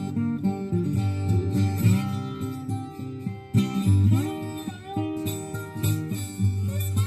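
Vintage Maton CW80D twelve-string acoustic guitar tuned to open G, played bottleneck-slide style. Fingerpicked notes are joined by slide glides up and down in pitch, in a Delta blues line.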